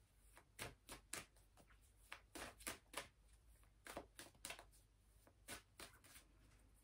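Tarot cards being handled: a faint, irregular string of soft card clicks and flicks.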